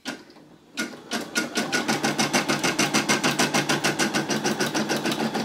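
Brother SE625 computerized embroidery machine starting up about a second in and stitching out a patch design, its needle running in a rapid, even rhythm of roughly ten strokes a second.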